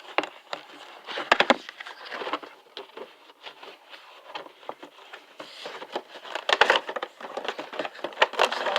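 Cardboard box and plastic bubble-packaging tray being handled and pulled apart: a run of scrapes, rustles and sharp clicks, with two louder clusters of snaps about a second and a half in and again near seven seconds.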